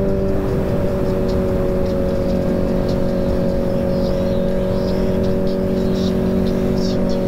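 Honda CBR1000RR Fireblade's inline-four engine running at steady cruising revs, its pitch holding level, under a constant rush of wind and road noise from riding at speed.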